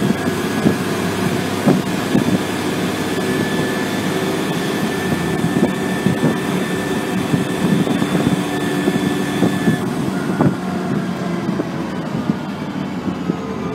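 ADL Trident ALX400 double-decker bus driving, heard from inside the lower deck. The engine and driveline run hard with a steady high whine and frequent rattles from the interior fittings. About ten seconds in the whine cuts off and the engine note starts to fall.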